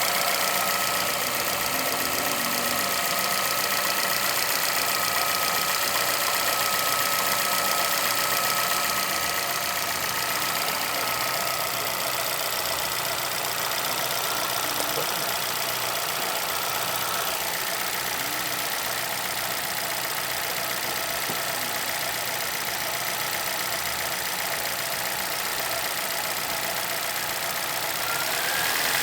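Chevrolet Celta's VHCE four-cylinder engine running steadily, with a steady high whine over it; the noise is one whose cause the owner does not know.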